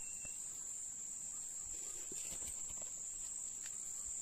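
Steady chorus of forest insects, one unbroken high-pitched trill, with a few faint ticks of hands working among sticks and leaves.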